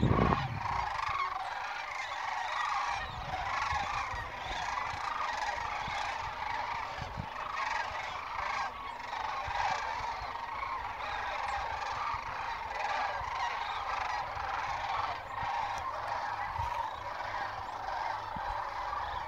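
A large flock of geese calling in flight, many overlapping honks merging into a steady chorus. There is a brief low thump at the very start.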